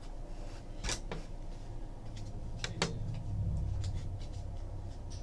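A stack of trading cards being handled and sorted by hand: soft card-on-card rubbing with a few sharp clicks of card edges, the clearest about a second in and a quick pair near three seconds.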